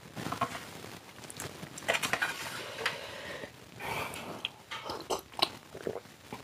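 Close-up eating sounds: a person chewing fried chicken, with short wet clicks and smacks. Near the end, a plastic cup is lifted and beer is sipped from it.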